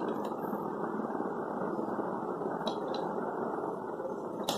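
Steady machine whirr, like a small motor running continuously, with a few faint clicks about two and a half seconds in, three seconds in and near the end.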